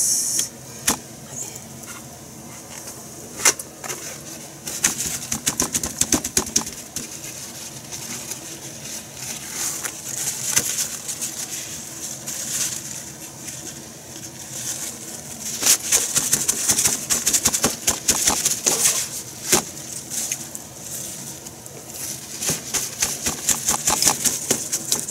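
Kitchen paper towels rustling and crinkling as they are handled and pressed onto raw chicken breasts, with light taps on the cutting board, coming and going in irregular spells.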